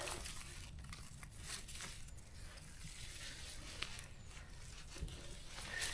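Faint rustling of forest-floor leaf litter with scattered light snaps and clicks, from hands and feet working through the undergrowth while picking chanterelle mushrooms.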